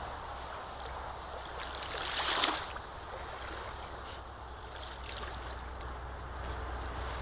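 Small waves lapping on a sandy shore, with a German Shepherd's front paws scraping and digging in wet sand and one louder swish about two and a half seconds in.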